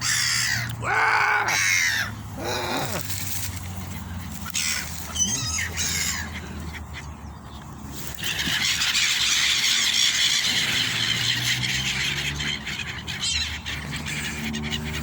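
A large flock of gulls calling: a few loud, sweeping squawks in the first few seconds, then from about halfway through a dense chorus of many gulls calling at once.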